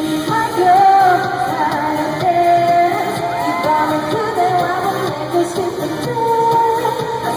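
Female pop vocalists singing live over an amplified backing track, heard through a large theatre's sound system.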